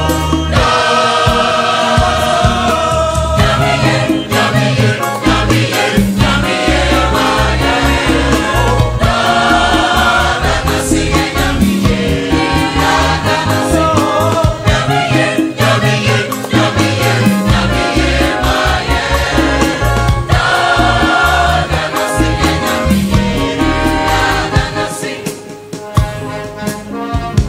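A choir singing an Agbadza medley, Ghanaian Ewe dance music, in several-part harmony over steady percussion. The music drops in level briefly near the end.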